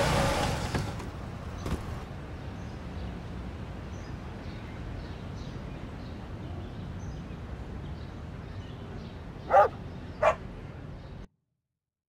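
A dog barking twice, two short barks less than a second apart near the end, over a low steady background.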